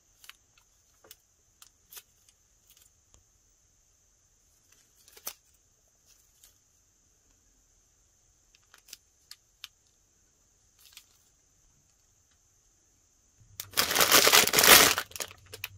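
Faint scattered taps and rustles of hands handling a small foam squishy, then near the end about two seconds of loud crinkling of a foil-plastic blind bag being pulled open.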